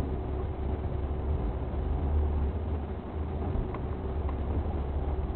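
Steady low rumble of a car on the move: engine and road noise, with a faint steady hum above it.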